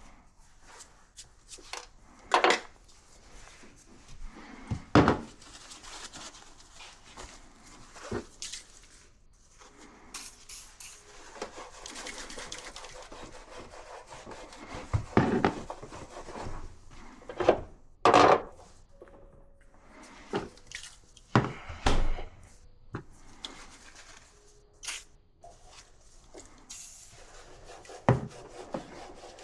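Hands-on repair work: scattered knocks and clinks of tools and parts being handled, with stretches of rubbing and scraping in between.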